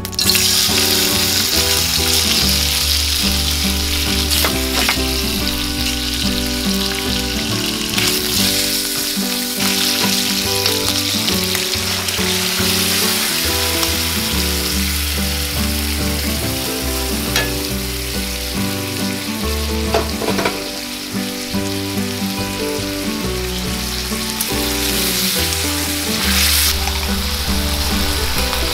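Potato chunks and bacon frying in oil in a metal pan: a steady sizzle, with a few sharp clicks as they are stirred.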